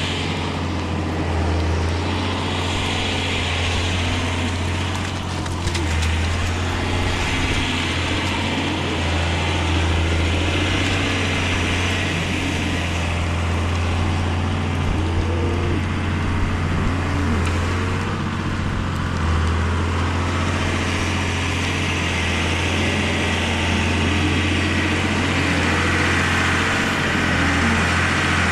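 John Deere 7520 tractor's diesel engine running steadily.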